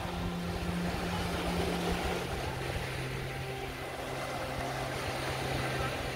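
Motorboat engine running offshore, a steady hum that drops to a lower pitch about two seconds in, over small waves washing onto the beach.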